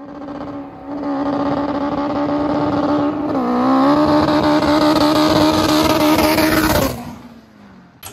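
Turbocharged Honda K24 four-cylinder engine running at high revs, its pitch held steady apart from a brief dip about three seconds in. Near the end the engine is let off and the revs fall away.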